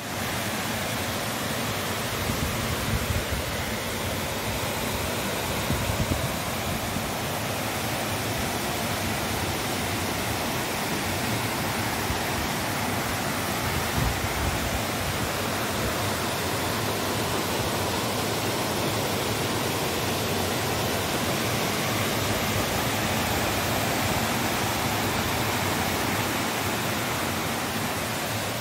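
Steady rush of a rocky forest stream tumbling over boulders in small cascades, with a few brief low thumps about 3, 6 and 14 seconds in.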